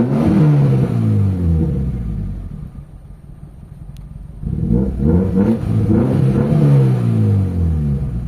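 Toyota Corolla's 4A-FE four-cylinder engine revved twice, rising and falling back to idle each time. It runs on a newly fitted fuel pump and takes the throttle cleanly: the engine is fixed and ready for a test drive.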